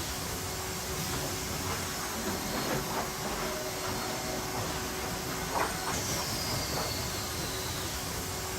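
Sawmill lumber-handling machinery running steadily, with boards knocking and clattering now and then, loudest a little past halfway. Near the end a high whine falls in pitch over about two seconds.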